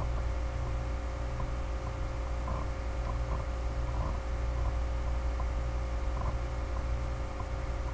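Steady low electrical hum with several steady tones, picked up by a computer's own microphone, with a few faint ticks scattered through it.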